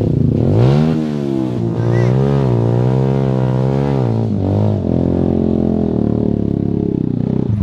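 Enduro motorcycle engine revving under throttle, its pitch rising and falling as the throttle is worked, then holding a steadier note for the last few seconds.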